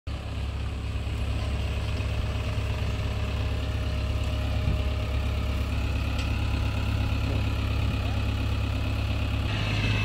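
JCB 3DX backhoe loader's diesel engine running steadily with a low, even drone.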